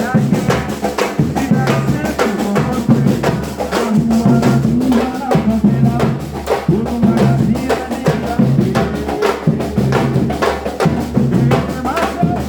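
A group of drummers playing together in a dense, driving rhythm on many drums, with deep bass drums.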